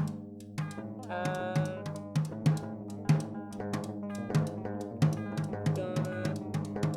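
Drum kit played busily, with bass drum and snare strikes several times a second, over a bed of sustained pitched tones triggered by typing on a computer keyboard with Soundplant; the tones change every so often, with a new set coming in about a second in.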